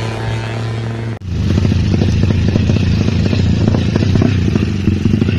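Suzuki Satria FU single-cylinder motorcycle engine, bored up to 200cc and fuel-injected, running. About a second in it cuts off suddenly and comes back louder, with rapid firing pulses.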